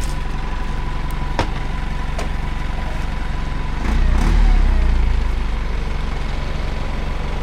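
Truck engine idling steadily, swelling briefly louder about four seconds in, with a single sharp click about a second and a half in.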